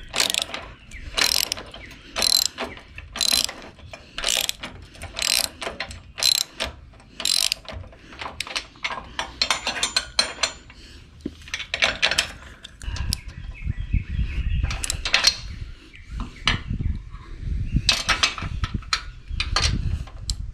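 Socket ratchet wrench clicking as it tightens nuts on a bolted bracket, one stroke about every second at first. Later the clicking turns denser and irregular over a low rumble.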